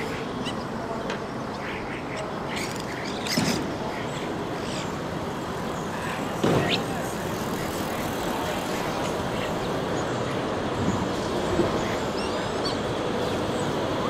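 Steady city street and traffic noise with scattered short chirps and whistles from common starlings close by, and brief louder sounds about three and a half and six and a half seconds in.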